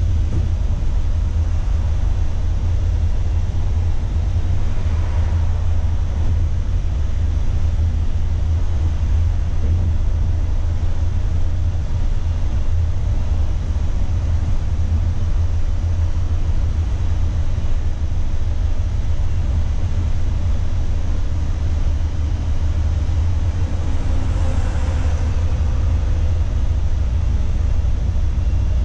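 Steady low rumble of a Mercedes-Benz intercity coach's engine and tyres, heard from inside the cab while cruising on the highway.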